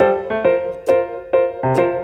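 Background music with a keyboard melody, a note struck about every half second.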